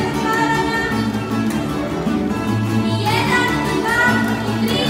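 A small live folk string band with a double bass plays a dance tune from Hrvatsko Zagorje. A high melody line of held and sliding notes runs over a steady bass line.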